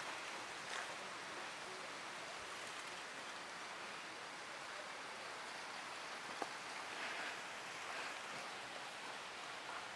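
Steady outdoor background hiss with no clear single source, with one faint tick about six and a half seconds in.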